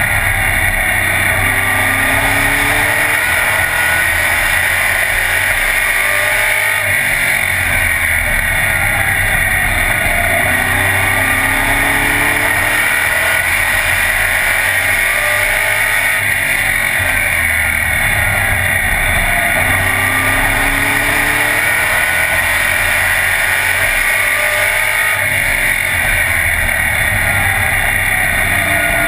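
Race car engine running hard, heard from inside the caged cockpit. Its pitch rises and falls in a repeating cycle every five to six seconds as the car laps the track, under a constant din of wind and road noise.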